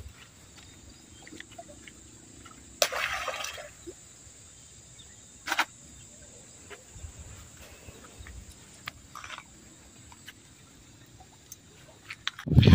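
Splashes and knocks at the water's edge as a hooked murrel is landed with a hand net, over a faint outdoor background: one sharp splash-like burst about three seconds in, a shorter one a few seconds later, then a loud low rumble near the end.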